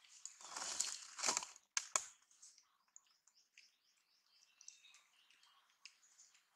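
Dry crackling and rustling, loudest in the first two seconds, with two sharp cracks about two seconds in, then scattered faint ticks and a few faint chirps.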